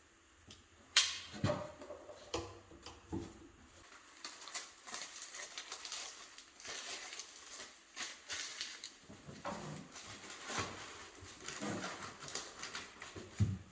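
Hands-on handling noise: a sharp knock about a second in, a few more light knocks, then rustling and scraping with occasional thuds.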